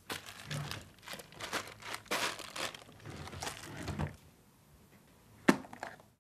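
Rustling and crinkling as someone rummages through things in a wardrobe's lower compartment for about four seconds, then a single sharp click about a second and a half later.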